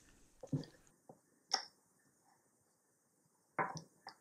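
Quiet handling noise from tying a bowline: a few short, soft clicks and knocks as a black plastic camera bracket and nylon hand line are handled against a wooden tabletop, the sharpest about a second and a half in and a small cluster near the end.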